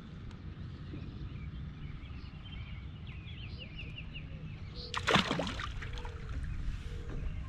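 A sudden loud splash in the water beside the canoe about five seconds in, a hooked fish breaking the surface as it is brought in. Before it, a bird sings a short trill of quick repeated notes over a steady low rumble of wind.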